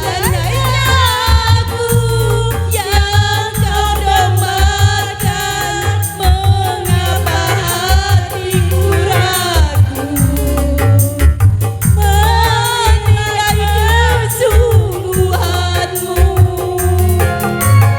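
Dangdut DJ remix music: a heavy, pounding bass beat under a wavering, bending lead melody. The melody breaks off briefly about halfway through, then comes back.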